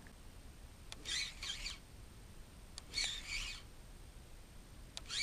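Spinning reel cranked in three short spurts about two seconds apart, each preceded by a faint click: a jig being worked along the bottom with a stepped retrieve.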